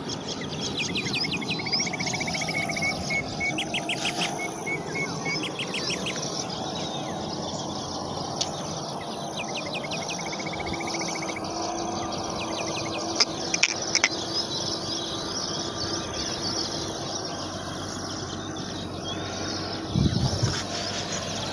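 Several wild birds chirping and calling in the open, with quick repeated trills and short sharp chirps coming and going, over a steady high insect-like drone.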